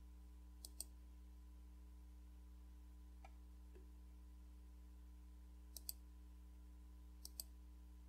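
Three quick click pairs from a computer mouse button, each a press followed at once by a release, over a faint steady hum.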